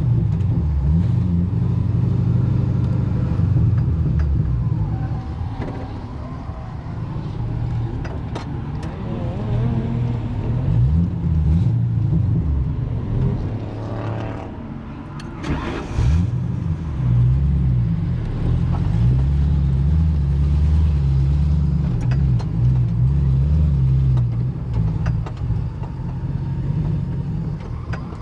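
Vehicle engine running while driving, its pitch rising and falling as it speeds up and slows.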